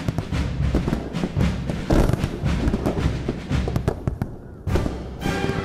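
Fireworks shells bursting in quick succession, a dense run of bangs and crackles that thins out about four seconds in. Near the end a new burst is followed by music with sustained chords.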